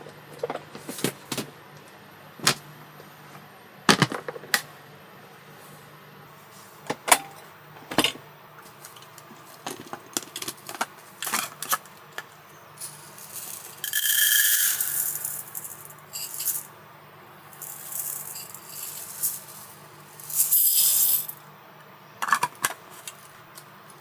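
Objects being handled: a run of sharp clicks, knocks and rattles, then several longer bursts of hiss or rustling in the second half, over a steady low hum.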